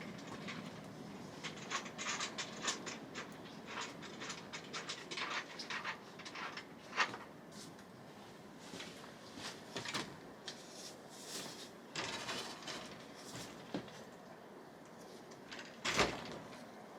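Scattered light knocks and clicks, thickest in the first half, with one louder knock near the end.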